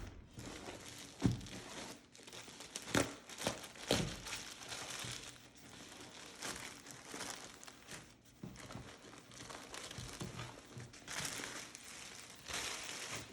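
Plastic packaging crinkling and rustling as it is unwrapped and handled by hand, with a few sharp knocks along the way.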